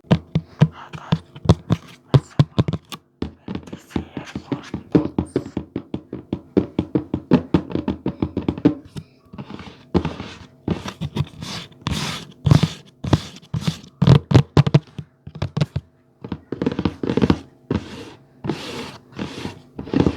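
Fast, irregular tapping and thudding on objects, several hits a second, with sharper, hissier strokes in the second half.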